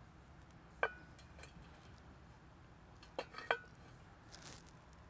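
Three sharp clinks of small hard objects, each with a brief ring: one about a second in and two close together a little past three seconds, followed by a short soft hiss.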